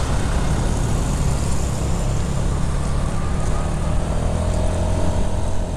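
Suzuki Spin 125 scooter's single-cylinder four-stroke engine running under way through traffic, mixed with steady road noise. A faint steady whine comes in about two-thirds of the way through.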